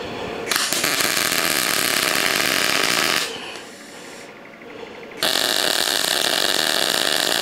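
MIG welding arc on steel flat bar, running in two bursts as tack welds are laid: the first starts about half a second in and runs nearly three seconds, the second starts about five seconds in and is still going at the end.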